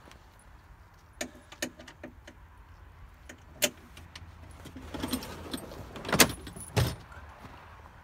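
A steel chain clinking and rattling as it is handled, with a few sharp clinks, then a black plastic sled scraping out of an SUV's cargo area, with two loud knocks near the end as it bumps down.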